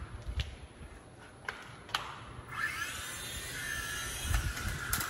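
Toy RC helicopter's small electric motors spinning up about halfway through, a whine that rises in pitch and then holds as it lifts off. A few sharp clicks come before it.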